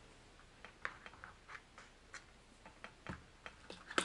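Faint, scattered clicks and taps of small plastic lures and a clear plastic tackle box being handled, with a slightly heavier knock about three seconds in.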